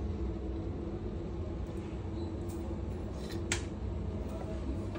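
A steady low mechanical hum, with a spoon clinking once on a glass jar about three and a half seconds in.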